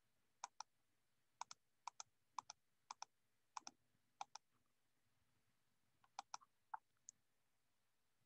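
Faint computer mouse button clicks, each a quick press-and-release pair: seven pairs within the first four seconds or so, a pause, then a few more clicks around six to seven seconds in.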